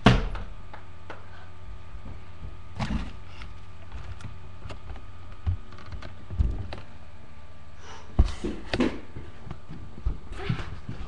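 Irregular knocks and thumps, a few seconds apart, over a steady hum.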